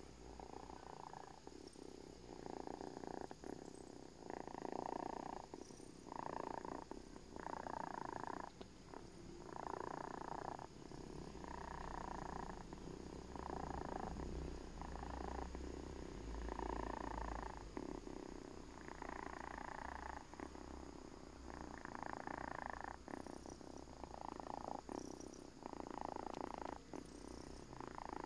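A sleeping pet snoring like an old person: rough, rasping snores in a steady breathing rhythm, about one every one and a half to two seconds.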